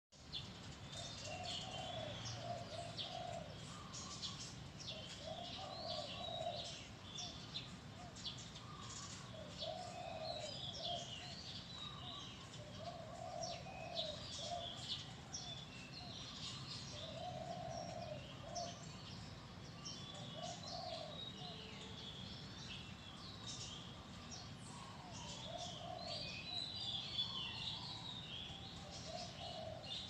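Birdsong: a dove cooing again and again in short low phrases every few seconds, with small birds chirping and twittering high above it.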